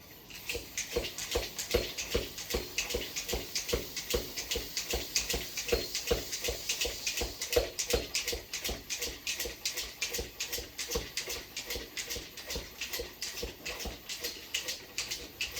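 Hand pump being worked in quick, steady strokes, each with a breathy rush of air, inflating a tubeless mountain bike tire fast enough to try to seat its bead without a compressor.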